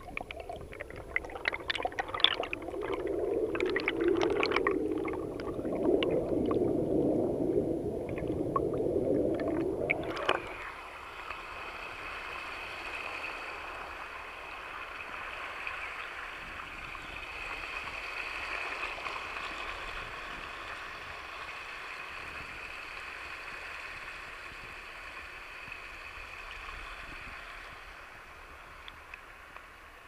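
Stream water gurgling and sloshing around a half-submerged action camera, muffled and uneven, with scattered splashes and clicks. About ten seconds in it switches abruptly to the steady rush of a small waterfall and water cascading over rock.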